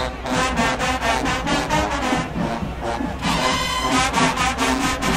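HBCU marching band playing: brass over a fast, steady drum beat, about four or five strokes a second, with a held brass chord a little past the middle.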